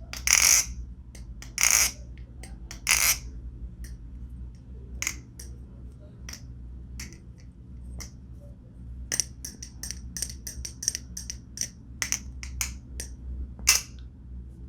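Balisong (butterfly knife) with rubbery, tungsten-weighted handle caps being flipped: sharp clicks as the handles and blade knock together, a few heavier strikes in the first three seconds, sparse ticks in the middle, then a quick run of clicks near the end.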